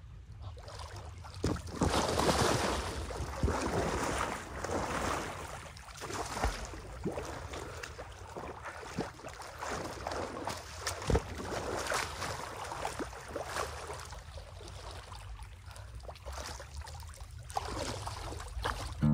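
Lake water splashing and lapping as a swimmer paddles along on an inflatable float, with wind on the microphone and a few small splashes and knocks.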